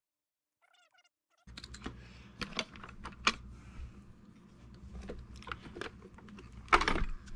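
Scattered sharp clicks and knocks of plastic and metal as a Kirby vacuum's housing is handled and its screws are worked with a screwdriver during reassembly. The loudest knock comes near the end, as the machine is tipped over.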